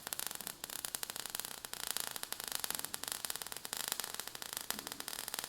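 Faint crackling static: a steady hiss full of dense fine clicks.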